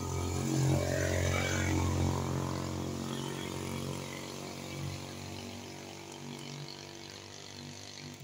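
A motor engine droning at a steady pitch, loudest about a second in and then slowly fading.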